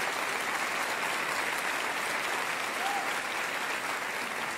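Theatre audience applauding, a steady dense clapping throughout.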